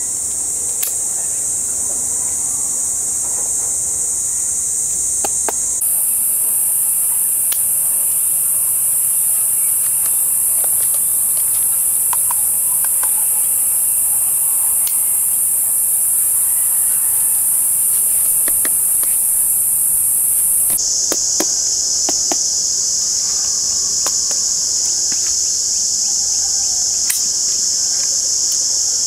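Loud, steady, high-pitched insect chorus that jumps higher in pitch about six seconds in and drops back lower about twenty-one seconds in, with a few faint scattered clicks and knocks beneath it.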